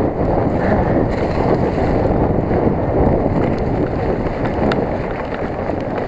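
Wind rushing over an onboard camera microphone on a mountain bike descending at speed: a steady, loud rumbling roar. Scattered faint clicks and rattles come from the bike running over rough ground.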